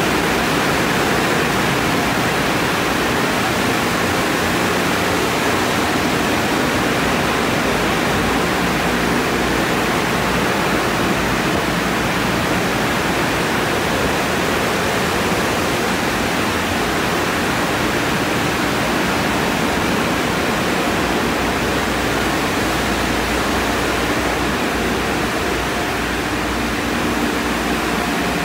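Tunnel car wash running, with a steady, loud rush of water spraying over a car.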